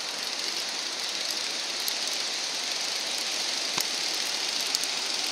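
Steady rushing of surf and wind on the beach, with a single sharp click about four seconds in.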